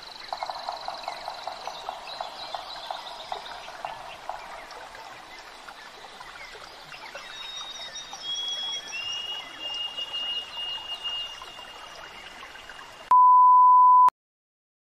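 Nature ambience of animal calls: a rapid pulsing trill for the first few seconds, later thin steady high whistling calls. Near the end a loud steady test-tone beep, the loudest sound, lasts about a second and cuts off abruptly into silence.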